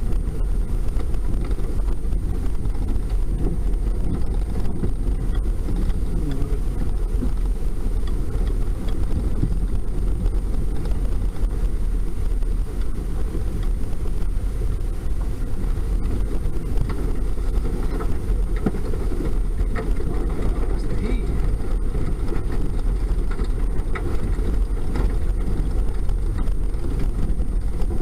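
Toyota Tacoma pickup driving across a muddy field, its engine and tyre noise a steady, loud rumble heard from inside the cab, with a few faint ticks in the second half.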